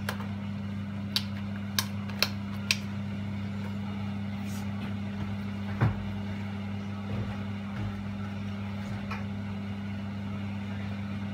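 Steady low hum, with four short sharp pops in the first three seconds and a soft knock near the middle: a milk-based pasta sauce still simmering lightly in a frying pan on the switched-off stove.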